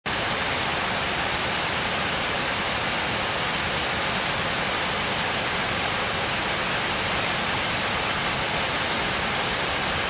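Turbulent falling water rushing steadily: a dense, even hiss with most of its energy in the high range and no breaks.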